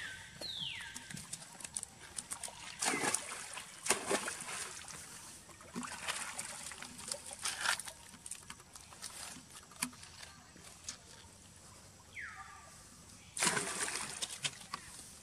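Macaques splashing in a stone pool: scattered small splashes and water sloshing, then a louder splash about a second long near the end as one plunges in and swims. A few high calls falling in pitch sound at the start and shortly before the big splash.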